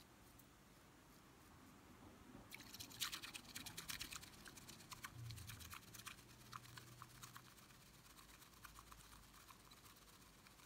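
Bamboo matcha whisk (chasen) whisking tea in a ceramic bowl: a rapid, faint wet swishing and frothing that starts about two and a half seconds in. It is loudest in the middle and thins out toward the end.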